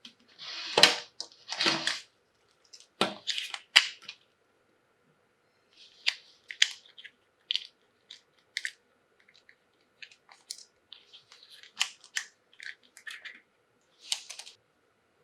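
Toys and their packaging handled close to the microphone: a few crinkly rustles in the first four seconds, then scattered short clicks and taps.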